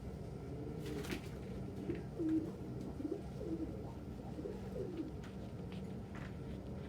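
Domestic pigeons cooing repeatedly in low, wavering notes, with a few short sharp clicks among them.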